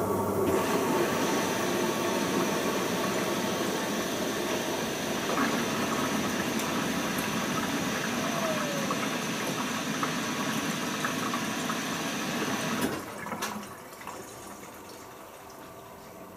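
Bosch Logixx washing machine filling with water for its final rinse: a steady rush of water through the inlet valve, which cuts off sharply about three-quarters of the way through as the valve closes.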